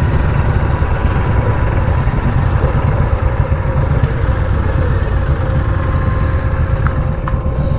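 Motorcycle engine running steadily, its sound heavy and low, with a faint steady whine above it.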